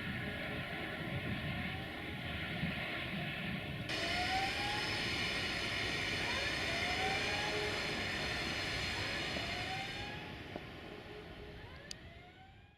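Freight train rolling through, with steady wheel and rail noise and a short rising squeal from the wheels every second or two; the sound fades out near the end.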